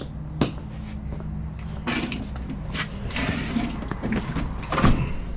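Boxes and containers being shifted and opened by hand: a sharp knock about half a second in, scraping and rustling, then a louder clunk near the end, over a steady low hum.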